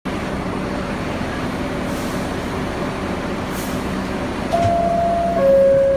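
Steady hum of an R62A subway car standing at the platform. About four and a half seconds in, its door chime sounds: a higher tone, then a lower, louder one held a little longer, the signal that the doors are about to close.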